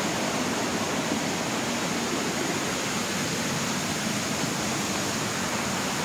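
Steady, even rush of flowing water from a small monsoon stream and waterfall.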